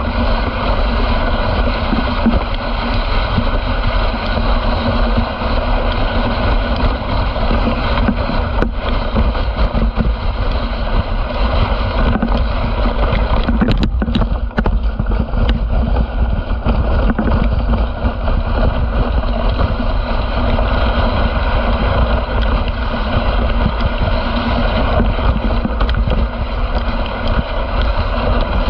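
Dog sled gliding over packed snow behind a running team: a steady rushing hiss of the runners on the snow mixed with wind on the microphone, with a couple of brief knocks around the middle.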